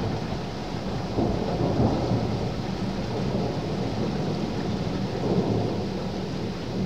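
Distant thunder rumbling continuously, swelling slightly about two seconds in and again about five seconds in, over a steady hiss of rain.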